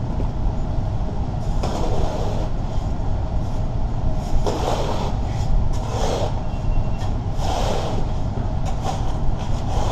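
Spade scraping and scooping loosened debris from a grate, four separate scrapes over a steady low rumble.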